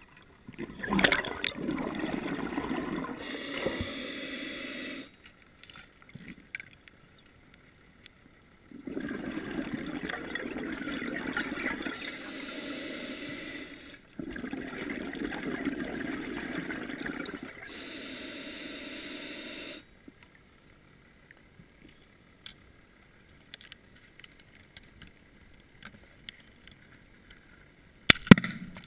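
Scuba diver's exhaled bubbles rushing from the regulator in long breaths of several seconds each, with quiet gaps between them, heard underwater. A single sharp crack near the end.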